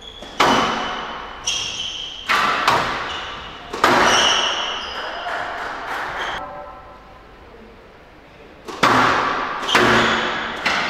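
Squash rally: the ball hit hard and striking the court walls in sharp, echoing impacts about a second apart, with brief high squeaks of shoes on the court floor. Play pauses for about two seconds past the middle, then the hits resume.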